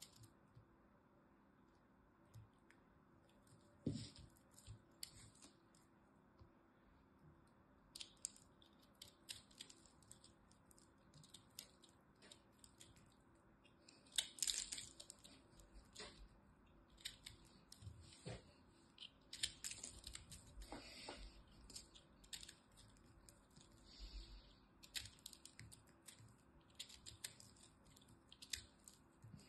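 A utility-knife blade cutting and scraping through a crumbly soap ball, giving faint, irregular crackles and crunches, with louder crunchy stretches about halfway through and again a little later.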